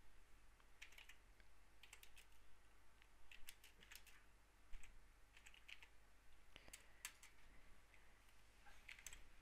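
Computer keyboard typing: faint keystrokes coming in short irregular bursts.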